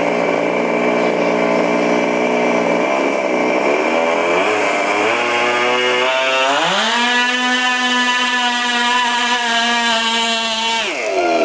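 Small gas engine of a radio-controlled pulling vehicle idling, then revving up over about two seconds and holding high revs for about four seconds under load, before dropping back suddenly near the end.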